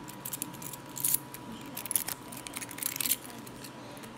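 Handling noise close to the microphone: a hand rubbing and tapping at the recording device, making a series of rustles and sharp clicks, with the loudest ones about a second in, two seconds in and around three seconds in.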